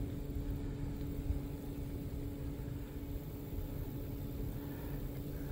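Wind rumbling on the microphone, with a steady low hum underneath.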